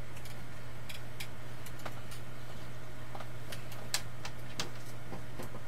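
Scattered small clicks and ticks, irregular and sped up, from LED strip lights being handled and pressed onto a wall, over a steady low hum. The sharpest click comes about four seconds in.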